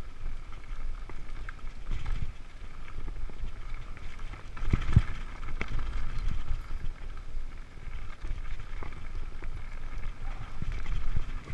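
Mountain bike rolling over a dirt singletrack, heard from a helmet-mounted camera: a steady low rumble of wind on the microphone and tyres on dirt, with scattered knocks and rattles from the bike over bumps, the loudest about five seconds in.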